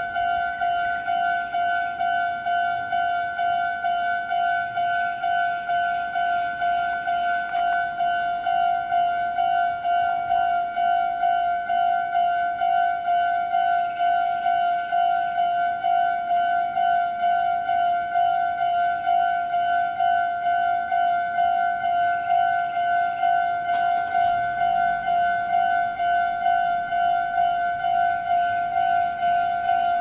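Japanese railroad crossing's electronic warning bell sounding, a steady single-pitched ding repeating at an even quick pace: the crossing is active for an approaching train.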